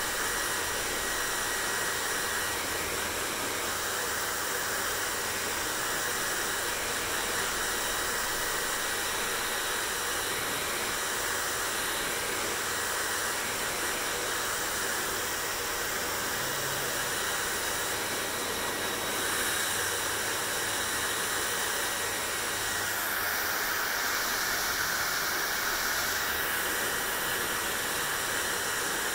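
Hair dryer running steadily: an even rush of air, its sound brightening briefly twice in the later part.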